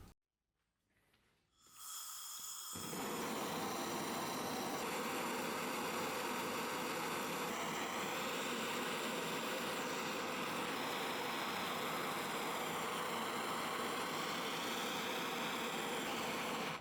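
Power tool motor running steadily with a buzzing whine whose pitch drifts slightly. It starts about two seconds in.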